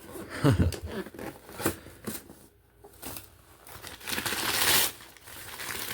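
Shipping packaging being handled and torn open: crinkling and rustling with scattered clicks, a thump about half a second in, and a longer tearing rip about four seconds in.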